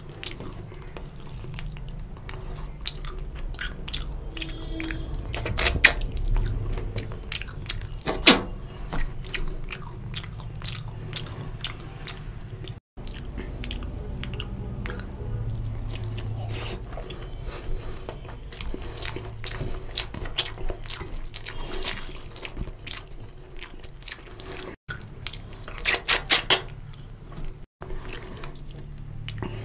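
Close-up eating sounds: chewing and smacking of mouthfuls of rice and fish curry, with wet squelching as fingers mix rice into the curry on a steel plate. A few louder sharp clicks and crunches stand out, about six and eight seconds in and again near the end.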